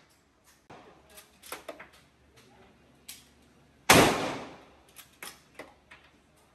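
A single handgun shot on an indoor range, about four seconds in, ringing out for about a second in the enclosed range. Fainter sharp clicks and clinks come before and after it.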